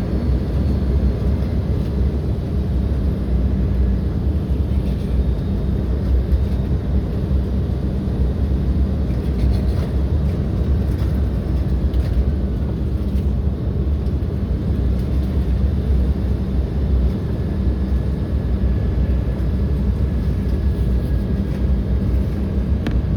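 Steady low cabin rumble inside an Embraer 175 jetliner, from its two GE CF34 turbofan engines and the airframe, even in level with no sharp events.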